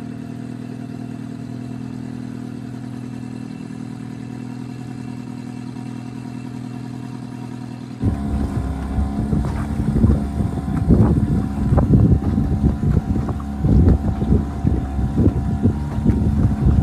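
Old Johnson outboard motor running steadily with a low hum. About halfway through the sound jumps louder as the boat moves along: the engine tone carries on under heavy wind buffeting on the microphone. The owner says the motor is still running but not running perfectly.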